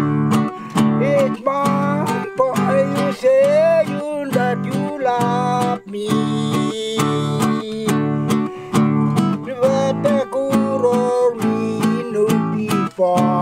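Acoustic guitar strummed in a steady rhythm, with a voice singing a melody over it.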